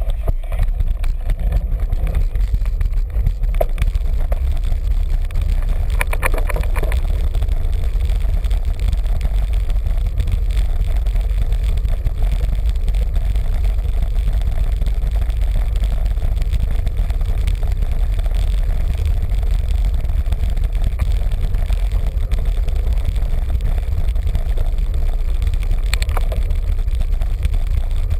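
Wind buffeting the microphone of a bicycle-mounted camera while riding, a steady heavy low rumble mixed with tyre and road noise, with a few brief rattles.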